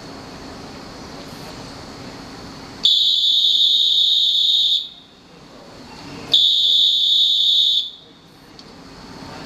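A railway platform whistle blown twice, two long shrill blasts, the first just under two seconds and the second about a second and a half, over the steady hum of a train standing at the platform.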